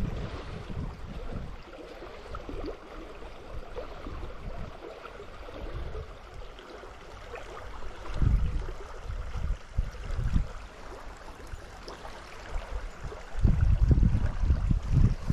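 Stream water running steadily, with low buffeting on the microphone about eight and ten seconds in and again, longer, near the end.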